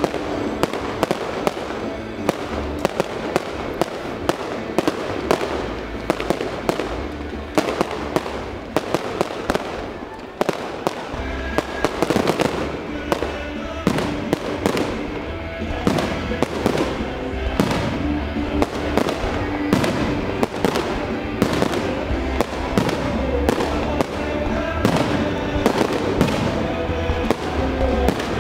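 Aerial fireworks bursting in rapid, overlapping bangs, several a second, over the accompanying music of a pyromusical display.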